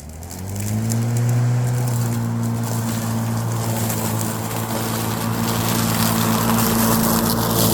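Lawn mower starting up, its blade spinning up to speed over about a second and a half and then running at a steady pitch, with a rushing noise growing louder behind it in the second half.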